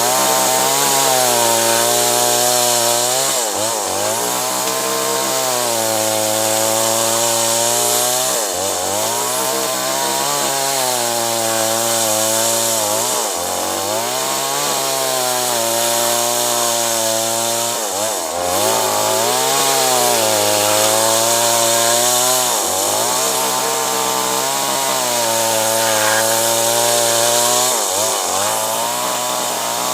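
Chainsaw running at high revs while cutting acacia wood. About every four to five seconds its pitch dips sharply and climbs back as it bogs under load and recovers.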